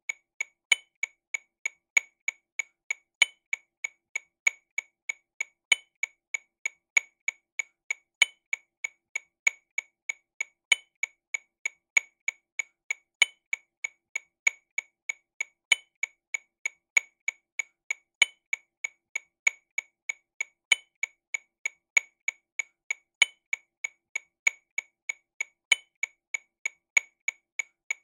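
TAMA Rhythm Watch RW200 metronome clicking sixteenth notes at 48 BPM: a steady, even run of about three clicks a second. Each beat (every 1.25 seconds) gets a louder click, and every fourth beat, at the start of each bar, has a differently pitched accent.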